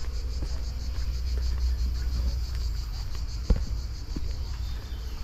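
A steady high-pitched chorus of cicadas buzzing in the trees, over a low rumble on the microphone. A single sharp click about three and a half seconds in is the loudest sound.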